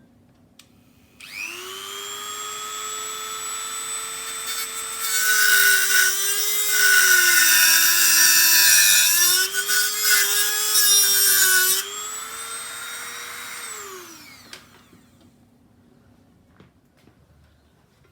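A handheld electric cutting tool spins up about a second in, then cuts into a strip of sheet metal loudly for about seven seconds, its motor pitch dipping under the load, before it winds down near the end.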